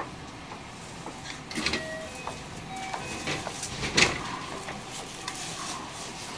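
Inside a JR West 207 series 1000 commuter train: a steady hum with scattered clicks and rattles, and one sharp knock about four seconds in.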